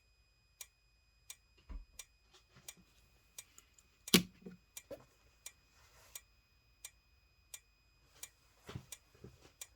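Simplex 4903-9221 horn/strobe's strobe flashing: a sharp tick with each flash, evenly spaced about three every two seconds, over a faint steady high whine. Irregular handling knocks and rattles come in between, the loudest about four seconds in.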